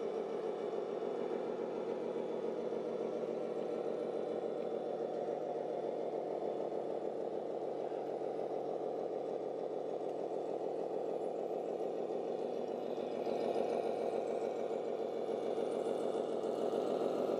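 Diesel truck engine sound from an RC Scania tipper truck's sound module, running steadily with an even knocking pulse. It grows louder and brighter about thirteen seconds in.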